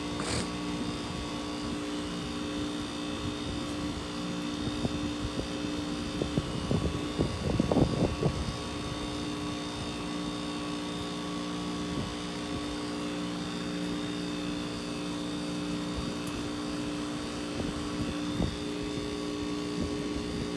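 Goodman heat pump outdoor unit running in an interval defrost cycle: a steady hum with several fixed pitched tones. A cluster of short knocks comes about six to eight seconds in.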